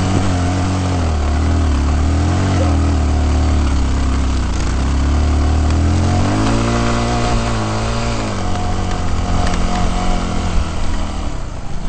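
An off-road vehicle's engine running under load, its pitch rising and falling several times as it is revved up and down, getting rougher and more uneven near the end.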